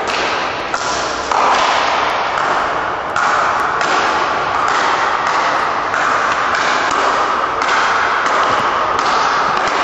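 Speedball rackets striking the tethered ball in a quick rally, a sharp hit roughly every half second to second, over a loud steady rushing hall noise.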